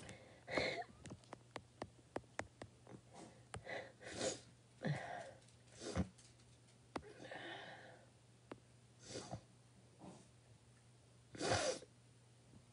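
A woman crying quietly: a string of short, sharp breaths and sniffs, with the loudest one near the end and light clicks in between.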